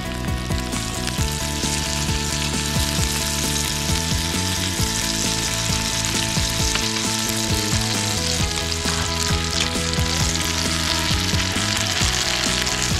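Butter sizzling and frying in a cast-iron skillet around a potato galette, the sizzle swelling about a second in as the butter melts, over soft background music.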